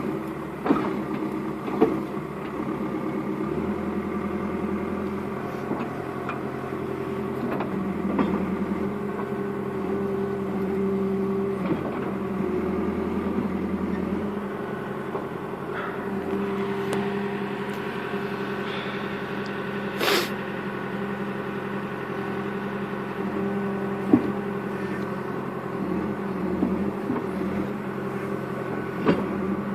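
Backhoe engine running steadily, its note shifting a couple of times as the load changes, with scattered knocks and clanks and one sharp, louder bang about two-thirds of the way through.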